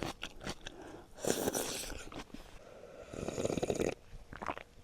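Eating river-snail rice noodles (luosifen) close to a clip-on lavalier microphone: two long slurps, about a second in and about three seconds in, with small chewing and mouth clicks between.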